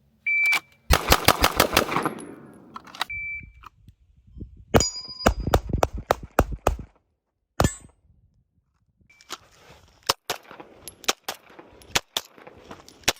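A pistol being shot on a shot timer: a short high timer beep, then a rapid string of about seven shots, repeated three times, with the shots more spaced out in the last string. The pistol is the Fusion Firearms XP Pro, a double-stack 1911 that takes Glock magazines.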